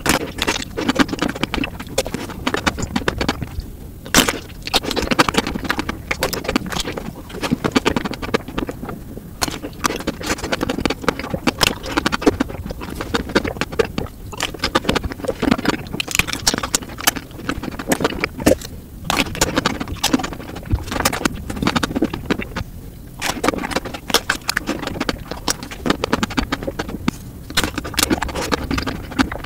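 Close-up eating sounds of chocolate desserts: biting and chewing chocolate-coated ice cream bars and chocolate cake, a fast, dense run of crackles, clicks and crunches.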